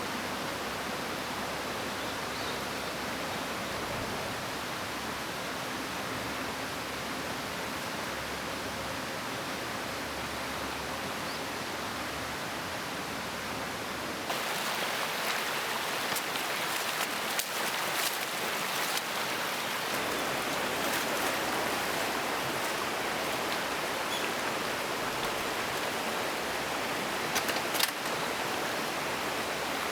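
Steady rushing of a flowing stream. About halfway through it steps up in level, and a scatter of short sharp clicks and ticks sounds over it.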